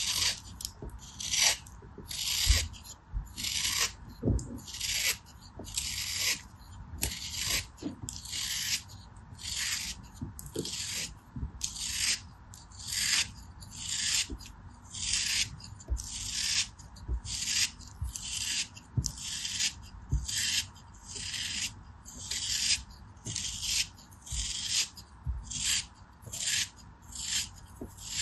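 Craft knife blade scraping thin slices off a block of compacted kinetic sand: short grainy scrapes in a steady rhythm, about three strokes every two seconds.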